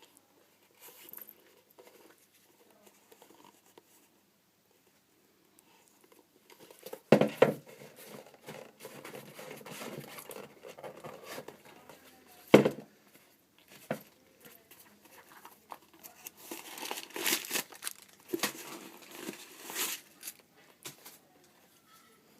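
Paper crinkling and tearing as packaging is handled and unwrapped, with two sharp knocks, the first about a third of the way in and the second just past halfway, and a busier stretch of crinkling near the end.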